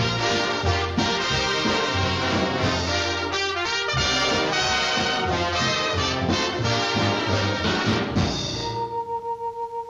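Orchestral cartoon score led by brass, with trumpets and trombones playing a busy, jazz-tinged passage. Near the end it thins to a single held high note with a quick pulsing.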